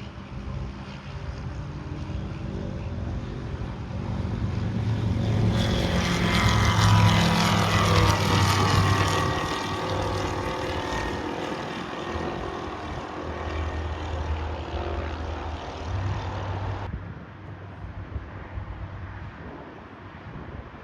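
Sling 2 light aircraft's propeller engine running, with heavy wind rush. About five seconds in the noise swells loud and the tones slide down in pitch, then it drops back to a quieter hum about two-thirds of the way through.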